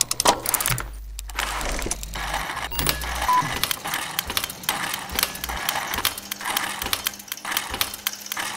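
Sound effects of a cartoon gear machine: a rapid, dense run of mechanical clicks, ratchets and clanks, with a low hum under the first three seconds or so.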